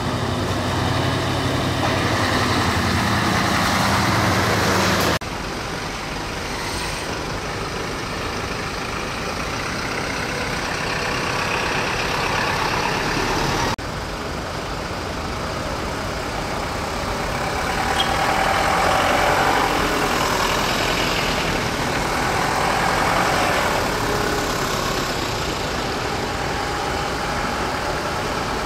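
Diesel engines of military trucks and high mobility vehicles running as they drive past one after another on a wet road, with tyre noise swelling as each passes. The sound drops suddenly about five seconds in and again near the middle.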